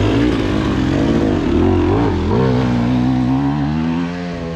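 Dirt bike engine running and revving. Its pitch rises and falls unevenly for the first couple of seconds, then settles into a steadier drone.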